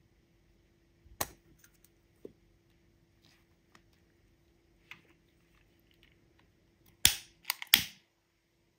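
A long-neck utility lighter sparked three times in quick succession, each a sharp click with a short rush of gas, the flame catching by the last. Before it, handling of a plastic lipstick tube, with one sharp click about a second in as the cap comes off.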